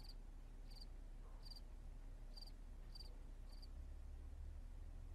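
Faint cricket chirping: short, high chirps about every two-thirds of a second, stopping a little over halfway through, over a low steady hum.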